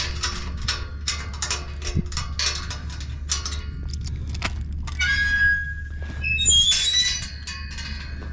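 Music with jangly, clicking percussive strikes over a steady low hum; about five seconds in, high held and gliding tones take over.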